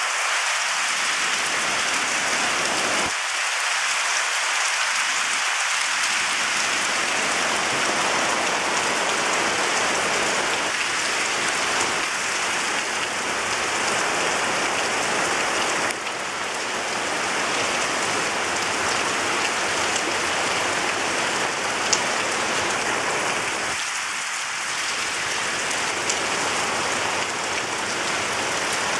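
Heavy monsoon rain pouring down steadily on palm leaves, trees and tiled roofs, a dense even hiss, with one sharp tick about two-thirds of the way through.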